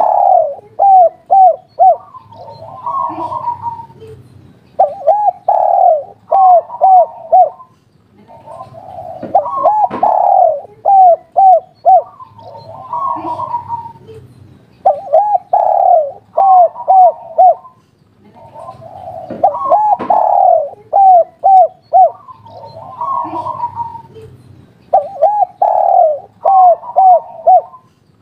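Spotted dove cooing its 'kuk 3' song over and over. Each phrase is a rolling coo followed by a quick run of short, clipped coo notes, repeating about every five seconds, with softer coos in the gaps.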